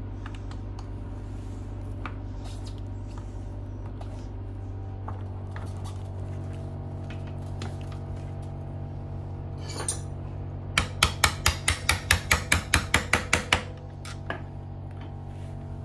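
A quick, even run of about a dozen sharp metallic taps, some five a second, about eleven seconds in, while the front wheel axle of a dirt bike is fitted through the fork and hub; a steady low hum runs underneath.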